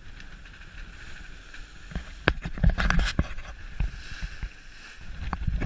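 Wind buffeting the microphone and sea water rushing and splashing along the hull of a sailing schooner under way in rough seas. There are loud gusty bursts with splash knocks about two seconds in and again near the end.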